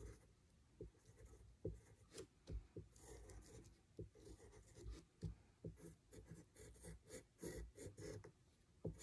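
Faint scratching of a pencil tracing over tracing paper in short, irregular strokes.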